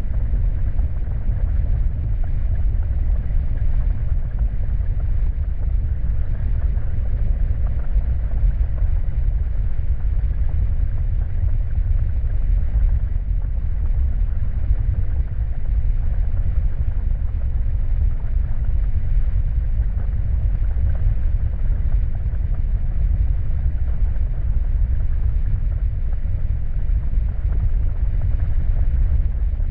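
Creepy dark-ambience sound effect: a steady, deep rumble that does not change.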